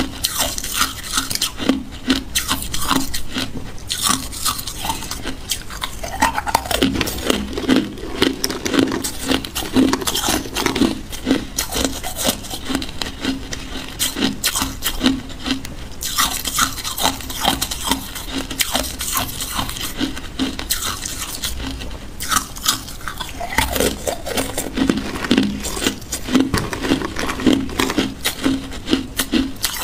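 Hard ice cubes being bitten and chewed close to the microphone: a dense, unbroken run of sharp cracks and crunches as the ice breaks between the teeth.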